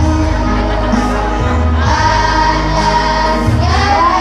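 Madrasah choir singing a hymn in long, held notes over a sustained bass accompaniment.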